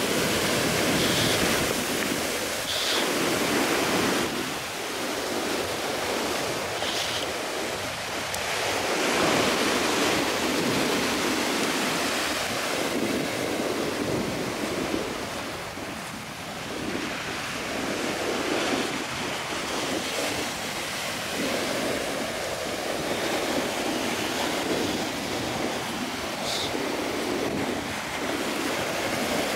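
Ocean surf breaking and washing up on a beach, a continuous wash that swells and ebbs every few seconds, with wind buffeting the microphone.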